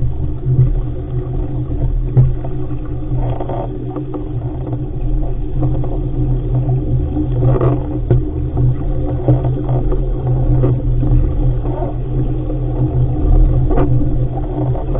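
Wind buffeting a boat-mounted camera's microphone as an RS500 dinghy sails fast and heeled, a loud steady low rumble, with water splashing against the hull a few times.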